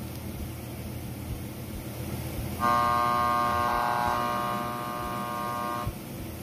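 Pioneer DEH-X1750UB car stereo tuned through the AM (medium wave) band, its speaker giving a steady hiss and hum of static. About two and a half seconds in, a steady buzzing tone with many overtones comes in, then cuts off suddenly about three seconds later as the tuning moves on.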